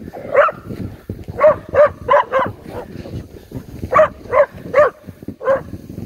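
A dog barking: about nine short, high barks in quick irregular bunches of two to four.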